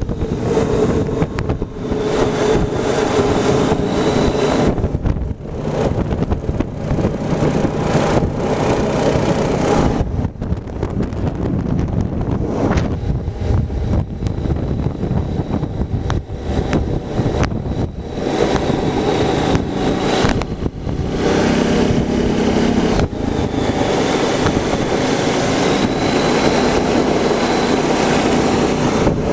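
A quad ATV's engine running while riding along a gravel trail, its note rising and falling with the throttle.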